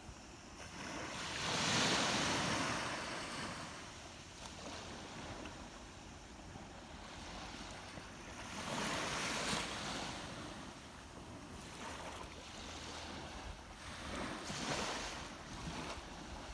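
Sea waves washing onto the shore, a steady wash with three surges that swell and ebb: the loudest a couple of seconds in, another around the middle and a third near the end.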